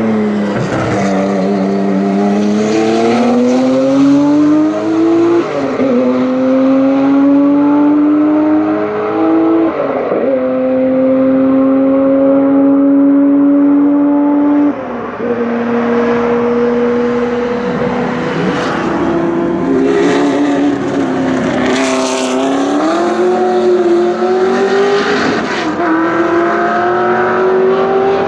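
A race car's engine running hard under acceleration. Its pitch climbs steadily, then drops back at each of several gear changes.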